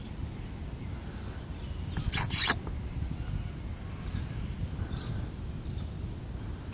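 Sulphur-crested cockatoo giving one short, harsh screech about two seconds in.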